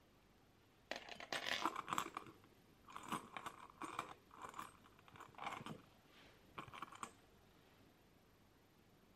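Metal rings and costume jewelry clinking and rattling as they are picked through by hand, in four short flurries.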